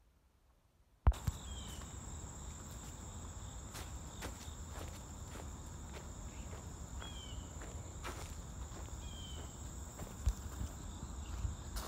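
Outdoor ambience on a dirt path under trees: a steady high insect trill with footsteps on dirt and leaf litter, and a few short falling chirps. The sound cuts in abruptly about a second in, after near silence.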